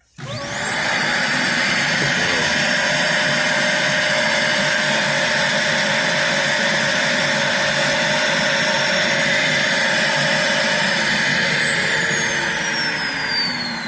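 Dyson DC40 upright vacuum cleaner's motor starting with a quick rising whine and running steadily. About eleven seconds in it cuts out unexpectedly and spins down with a falling whine.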